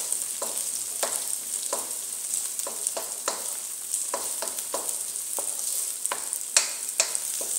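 Diced carrots, green peas and red onions sizzling in hot oil in a wok, with a spatula scraping and knocking against the pan as they are stirred, about three strokes a second.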